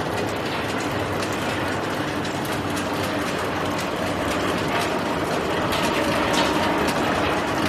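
Peanuts rattling against the walls of a rotating octagonal stainless-steel coating pan as they are poured in and tumble: a dense, steady clatter of many small clicks over a low hum.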